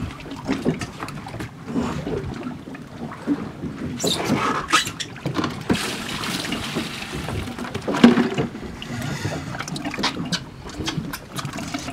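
Sea water splashing and lapping against a small boat's hull, with scattered knocks and clicks on board.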